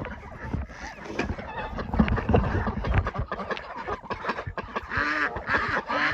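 Domestic waterfowl calling, with a honking call about five seconds in, over scattered clicks and knocks.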